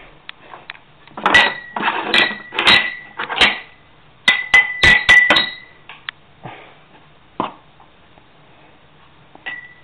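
Glass jam jars knocking and clinking against each other and the table as they are handled, about a dozen knocks in quick succession with a short bright ring after several of them, then a few lighter knocks near the end.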